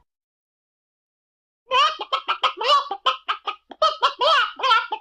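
Chicken clucking in a quick run of short, pitched clucks that begins almost two seconds in, after a silent stretch.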